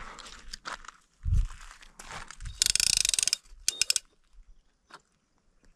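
Fishing reel ratcheting: a fast, dense run of clicks lasting a little under a second, about two and a half seconds in, followed by a few more separate clicks. A low thump comes about a second in.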